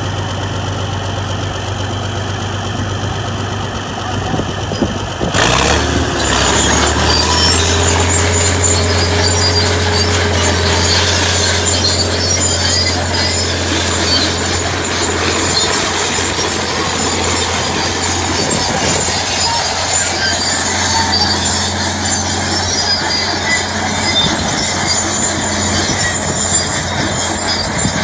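Diesel engine of a Fiat-Allis crawler tractor running steadily under load as it pulls a deep plough through dry soil. It gets abruptly louder about five seconds in, with harsher, higher-pitched mechanical noise over the engine drone from then on.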